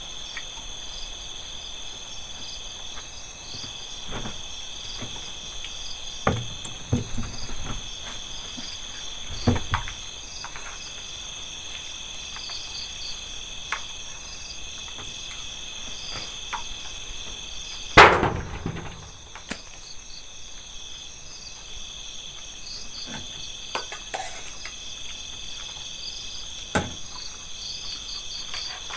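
Night insect chorus, a high steady trilling with a slow pulse, over scattered clicks and knocks of a spoon and a plastic food box. The loudest knock comes about two-thirds of the way through.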